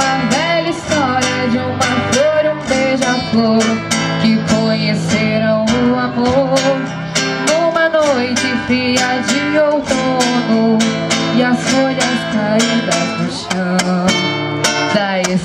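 Acoustic guitar strummed steadily, accompanying a woman singing a melody of held notes that waver.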